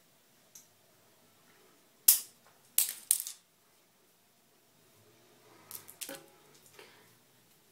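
Sharp clicks and clacks of small hard objects being handled or set down: a faint click, a loud one about two seconds in, a quick run of three a second later, then a softer cluster of rattling clicks around six seconds in.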